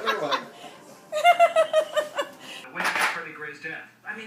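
People laughing and talking, with a run of short repeated laughs about a second in. A brief noisy burst comes near the three-second mark.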